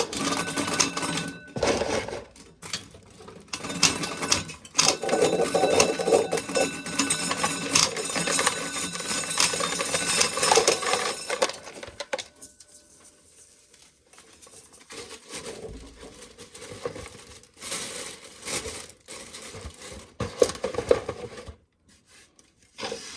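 Corn being shelled: a dense clatter of kernels and rattling from the corn sheller for about the first ten seconds. Then it goes quieter, with shorter bursts of clatter later on.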